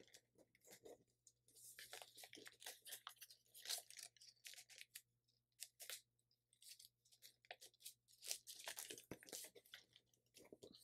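Faint, irregular rustling and crinkling of a thin sheet of paper being handled and creased by hand as it is folded.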